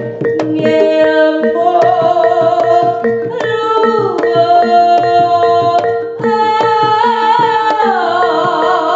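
Jaranan dance accompaniment music: hand drums beat a quick rhythm under a steady ringing tone and a held, wavering melody that slides down in pitch twice.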